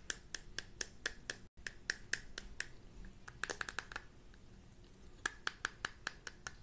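Long fingernails tapping and clicking on a small plastic shot cup: a run of sharp taps about four a second, then two quick flurries of clicks.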